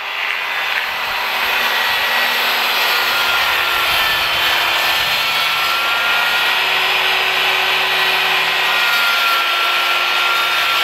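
Circular saw running under load as it cuts through a sheet of OSB along a track guide. A steady motor whine sits over the dense noise of the blade chewing through the wood.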